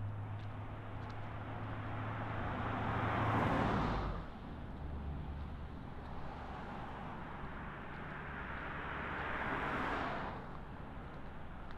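Two vehicles passing close by on the street, one about three seconds in and another near the end, each a swell of engine and tyre noise that builds and then quickly falls away.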